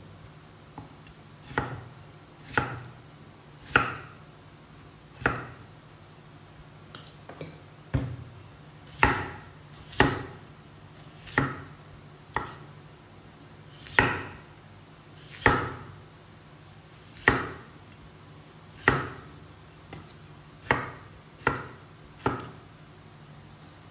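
Large kitchen knife slicing a peeled raw potato into thick slices on a round wooden chopping block: about sixteen separate cuts, unevenly spaced at roughly one a second, each a short sharp chop.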